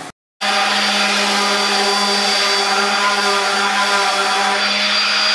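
Random orbital sander running steadily on a walnut tabletop: a constant motor whine with several steady tones. It starts abruptly after a short gap near the start.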